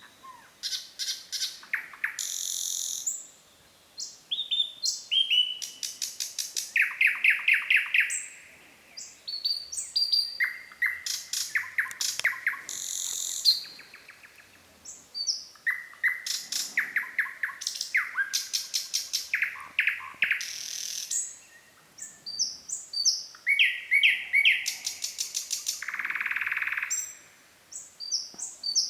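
Nightingale singing: a string of varied phrases of fast rattling trills, repeated clicking notes and whistles, separated by short pauses, with a harsh buzzy note near the end.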